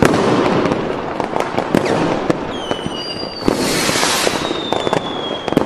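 Fireworks: dense crackling and popping throughout, with a hissing burst and a thin whistle that slowly falls in pitch starting near the middle.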